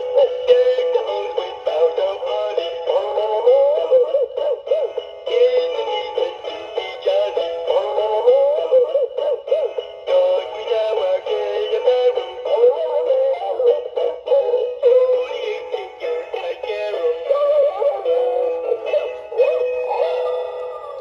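Gemmy Caroling Hound Dog animated toy singing a Christmas song with music through its small built-in speaker; the sound is thin and tinny, with no bass.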